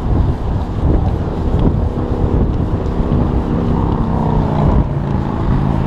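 Wind buffeting the microphone of a camera on a moving bicycle, a loud low rumble throughout. From about two seconds in, the steady pitched hum of a passing motor vehicle's engine rises over it for a few seconds and fades near the end.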